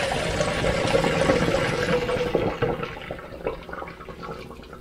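Hot pasta cooking water poured from a saucepan through a plastic colander into a stainless steel sink, a loud rushing pour that fades after about three seconds to trickles and small drips.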